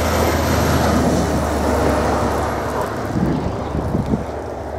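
Snowmobile engine passing by, loudest about a second in and then slowly fading as it moves away.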